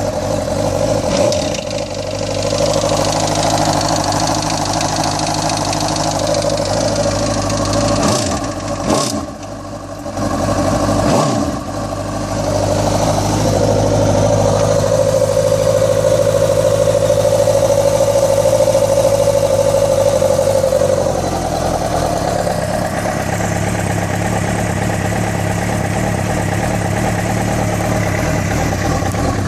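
Suzuki GSX-R 750 K6's inline-four engine running at idle, its speed shifting briefly a few times in the first half and again later, with a noise the owner finds strange.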